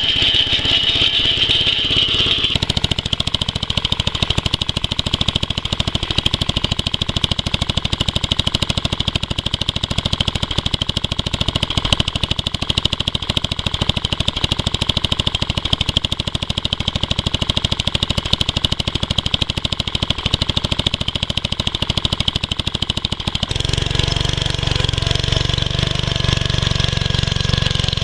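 Briggs & Stratton 8 hp single-cylinder engine of a 1962 Simplicity Model W walk-behind tractor running steadily with a fast, even firing beat. About three-quarters of the way through the sound turns deeper and heavier.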